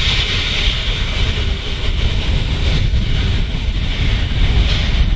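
Diesel locomotive Qube 1107 running light engine past at close range, a loud, steady low engine rumble with the train's running noise.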